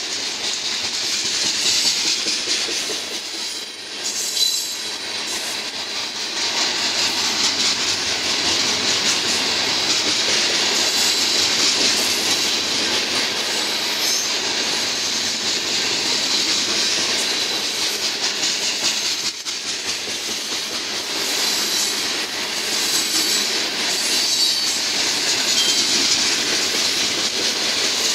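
Loaded oil tank cars of a freight train rolling past, steel wheels clattering steadily on the rail. The clatter carries loud pounding from flat spots worn on the wheels.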